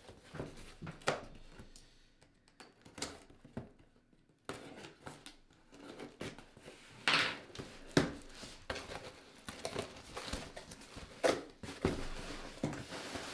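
Cardboard shipping box being opened by hand: irregular rustling, scraping and tapping of cardboard and packing, sparse at first and busier from about halfway through.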